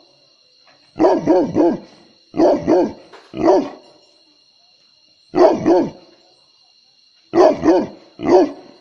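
Large mastiff-type guard dog barking deeply in short runs of one to three barks, about eleven in all, with pauses of up to a second and a half between runs. These are guard barks, sounding an alarm at something out in the dark.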